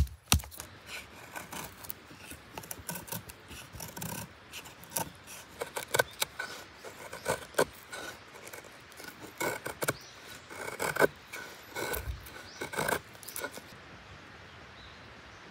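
A knife shaving wood in quick, uneven scraping strokes, which stop about two seconds before the end.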